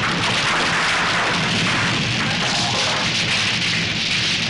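Fire burning through a wooden building: a loud, steady rushing noise, with music underneath.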